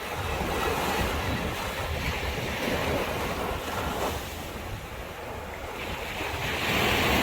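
Sea waves washing onto the shore, with wind buffeting the microphone; the surf swells and grows louder near the end.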